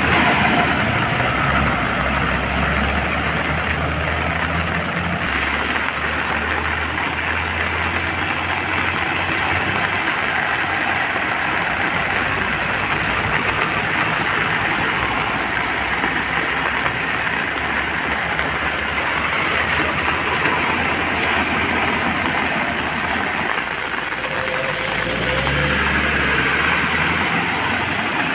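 Vehicles driving through floodwater during heavy rain: a steady hiss of rain and splashing water, with engines rumbling as they pass. The engine sound is strongest for the first ten seconds or so and again near the end.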